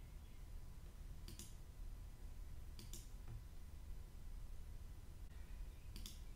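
Three computer mouse clicks, each a quick press-and-release pair of ticks: about a second in, about three seconds in, and near the end, over a faint low room hum.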